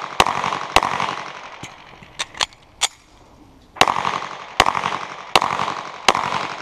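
Pistol shots in quick strings, each sharp crack trailing off in echo. Two shots come near the start, then a pause with a few fainter sharp cracks, then four more shots at about one every three-quarters of a second.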